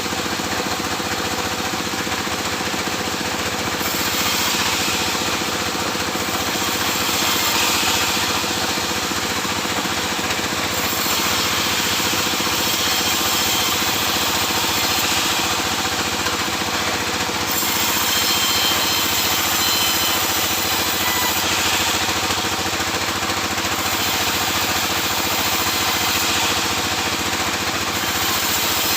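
Sawmill saw and its drive running steadily, with several stretches of a few seconds each where a louder, higher hiss rises over it as the blade cuts through sengon laut wood.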